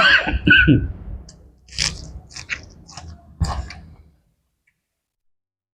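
Close-miked chewing and crunchy biting of a mouthful of spicy seafood salad with rice noodles, shrimp and squid, in short irregular bites, stopping abruptly about four seconds in.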